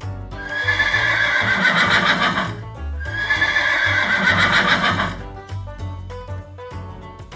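Horse neighing twice, two loud whinnies of about two seconds each with a quavering, falling pitch, over light children's background music.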